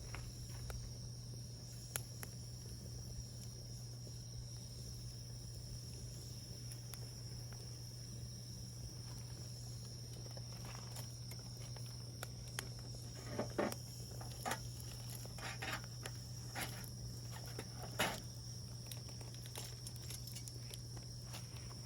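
Wood fire burning with sparse crackles and sharp pops, a busier run of pops in the second half with the loudest about thirteen and eighteen seconds in.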